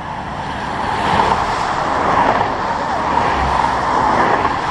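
Interstate traffic passing close by: a rush of tire and engine noise that swells about a second in and eases near the end.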